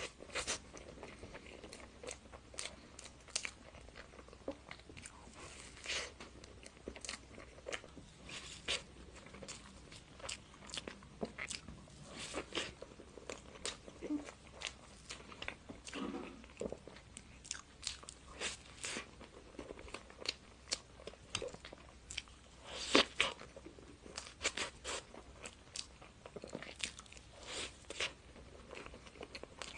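Close-miked eating sounds: a person biting and chewing dessert, with irregular crunchy clicks and crackles.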